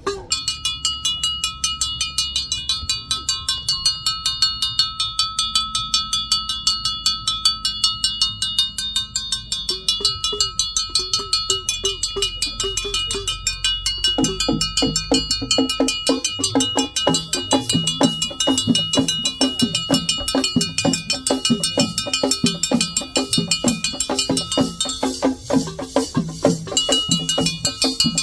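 Temple bells rung rapidly and without pause, a fast even clanging with a sustained ring. About halfway through, drums join with a steady beat.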